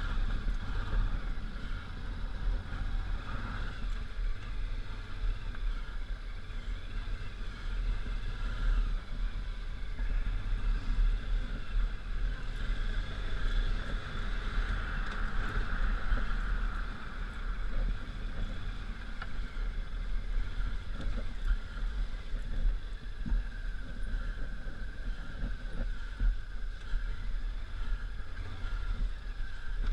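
1999 Honda Africa Twin's 750 cc V-twin engine running as the motorcycle is ridden off-road, under a constant low rumble. The engine note rises and falls, swelling about halfway through.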